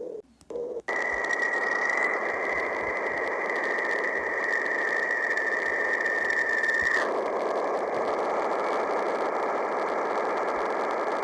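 Space-recording sonification of radio emissions: a steady hiss of static with a high, steady tone over it, starting after a brief gap about a second in. The tone drops away about seven seconds in, and the static carries on.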